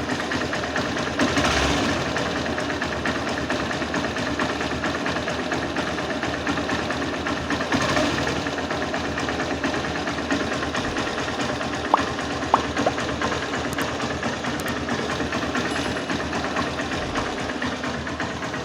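Honda Unicorn's single-cylinder motorcycle engine idling steadily on fresh Motul 10W-50 fully synthetic oil. It swells briefly twice, about a second and a half in and again around eight seconds. A few sharp clicks come around twelve seconds in.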